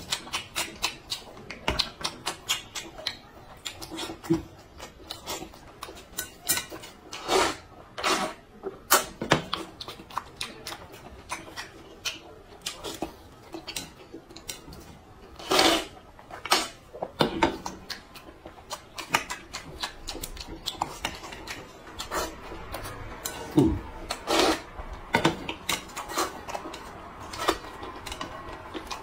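Eating from a metal bowl: metal chopsticks clicking and tapping against the bowl many times, with a few longer slurps of dumplings and broth.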